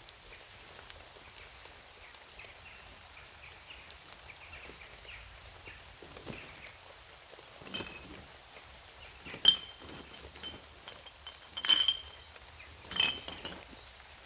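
Four sharp clinks of discarded drink containers knocking together as rubbish is picked up, starting about eight seconds in, with short ringing; the second is the loudest.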